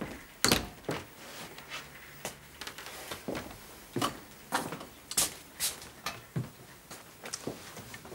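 Footsteps and small knocks on a hard floor, irregular, with a louder thud about half a second in.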